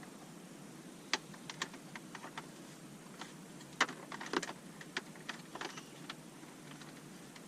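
Light, irregular clicks and taps of plastic as the DEWALT wet-dry vacuum and its power cord are handled, a dozen or so sharp ticks spread unevenly.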